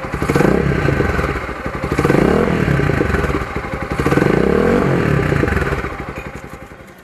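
Z200S motorcycle engine revved three times through a Yoshimura muffler fitted with two silencers, one in the elbow and one at the tip. Each rev rises and falls back. The engine dies away near the end.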